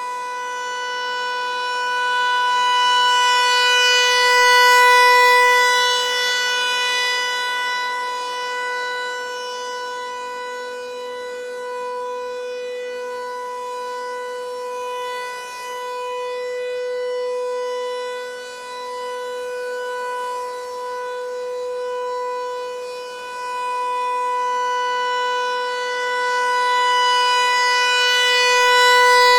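Federal Signal 508-128 electronic siren sounding a steady full-alert tone at one unchanging pitch. Its loudness swells and fades about every twelve seconds as the rotating speaker head turns toward and away.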